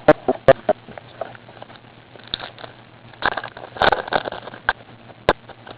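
Trading cards being handled and flipped through in the hand: a series of sharp clicks and rustles, with a busier patch of rustling and snapping in the middle and one sharp snap near the end.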